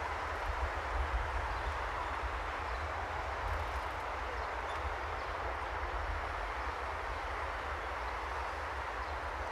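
Steady noise of riding a bicycle through city streets: a low, fluttering rumble of wind on the microphone over a continuous haze of road and traffic noise.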